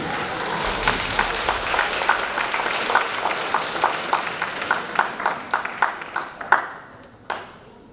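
Audience applauding, then thinning out to scattered individual claps over the last few seconds before it stops.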